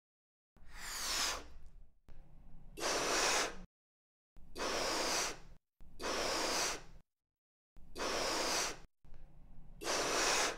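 Person blowing up a balloon: six loud breaths, in and out, each cut off sharply into dead silence.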